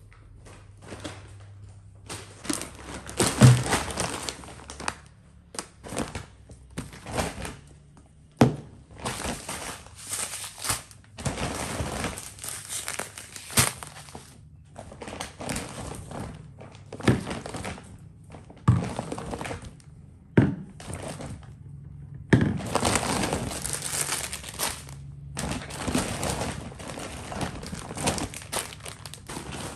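Plastic grocery packaging crinkling and rustling as items are lifted out of a large shopping bag and set down on a wooden counter, with irregular thunks as packs and containers are put down.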